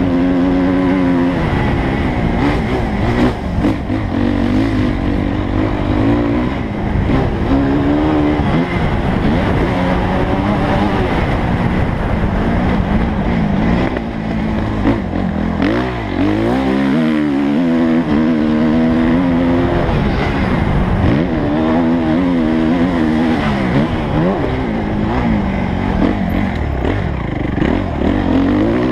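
Suzuki motocross bike's engine heard from on board, its revs climbing and dropping again and again as the rider accelerates, shifts and backs off along a dirt track.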